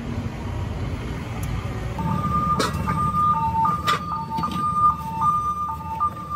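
A steady low rumble. From about two seconds in, a two-note electronic tune repeats over it, swapping between a higher and a lower note, and a couple of sharp clicks sound.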